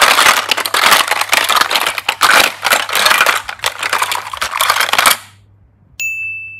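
Hard plastic toy cases and egg capsules clattering and knocking together as a hand rummages through a basket of them. The rattling stops about five seconds in, and near the end a single bright ding rings out and fades.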